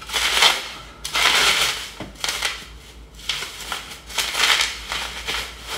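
Clear plastic packaging rustling and crinkling in several short bursts as the air rifle is handled and lifted out of its wrapping.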